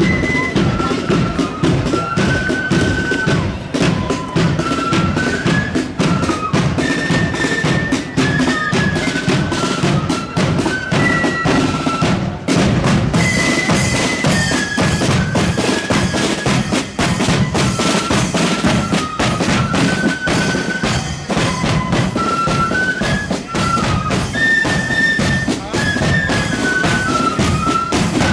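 Marching flute band playing a march: flutes carry the melody in unison over side drums and a bass drum keeping a steady beat.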